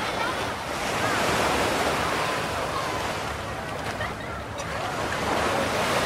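Atlantic surf breaking and washing up a beach, a steady hiss of water that swells and eases, with wind buffeting the microphone.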